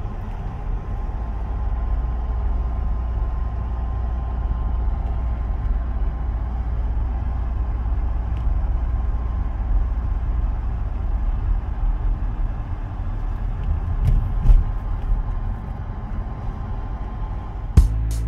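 Cabin noise of a car driving: a steady low rumble of engine and tyres on the road, with a couple of short knocks about fourteen seconds in.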